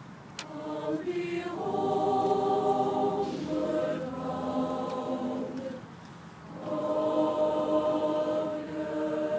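Large mixed choir singing slow, long-held chords. The singing drops away about six seconds in, then comes back on a long sustained chord.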